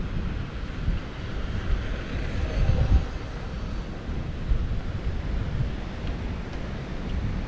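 Wind buffeting the microphone in uneven gusts, loudest about three seconds in, over a steady wash of sea surf.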